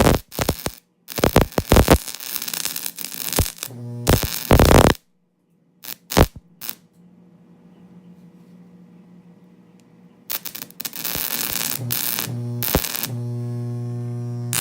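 Homemade microwave-oven-transformer welder humming under load, with loud bursts of arcing as its output leads touch metal: a cluster of short bursts over the first five seconds, then a longer, steadier one from about ten seconds in. Between them the transformer hum carries on more quietly.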